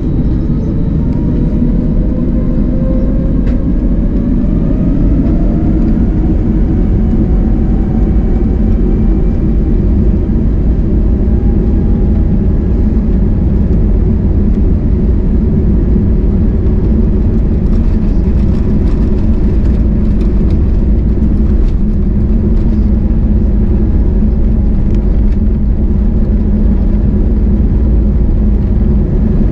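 Airbus A320neo's jet engines spooling up for the take-off roll, heard inside the cabin: whining tones rise in pitch over roughly the first ten seconds, then hold steady over a loud, continuous rumble.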